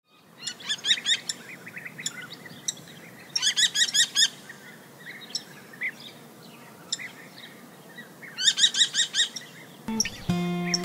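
American kestrel calls: three quick runs of repeated, high 'klee-klee-klee' notes with softer chirps between them. Acoustic guitar music comes in near the end.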